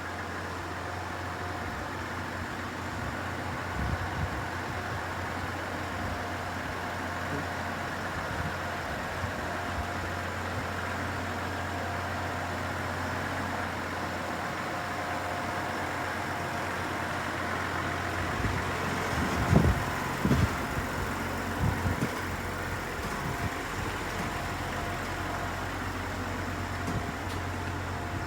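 Steady low mechanical hum with a few short dull thumps, a cluster of them about two thirds of the way through.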